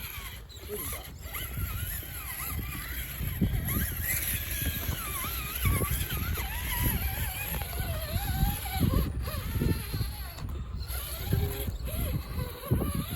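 A 1/10-scale Traxxas TRX-4 Sport Unimog crawler's electric motor and geartrain whining, rising and falling in pitch as the throttle is worked, with creaks and clunks from the chassis.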